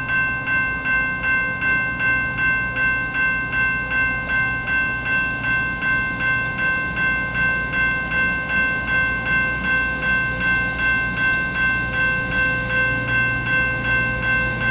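Railroad grade-crossing warning bell ringing in a steady, even rhythm of roughly two and a half strikes a second. Beneath it runs the low hum of an approaching train, a little stronger near the end.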